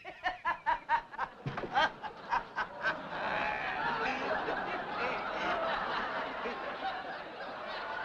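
Concert audience laughing: short, rhythmic bursts of laughter for the first three seconds or so, then a steady wash of the whole crowd laughing.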